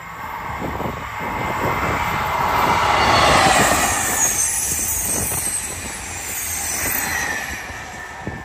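High-speed train passing at speed. The noise swells to its loudest about three and a half seconds in and then fades, with a falling whine on top.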